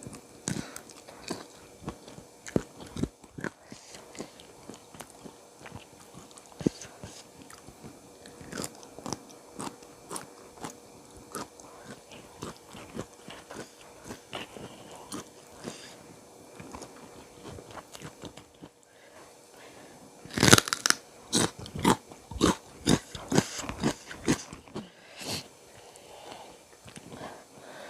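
Close-miked eating: a person biting and chewing with wet, crunchy mouth sounds, with a denser, louder run of crunchy bites about twenty seconds in.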